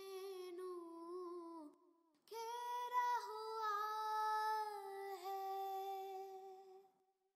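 A high voice singing an Urdu naat, drawing out long held notes, with a brief pause about two seconds in.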